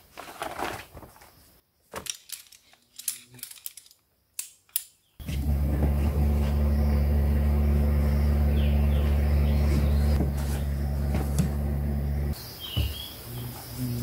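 Mosquito-fogging truck running a loud, steady low engine drone that starts abruptly about five seconds in and cuts off about seven seconds later. Before and after it come light clicks and rustling as a folding camping chair is pulled from its bag and unfolded.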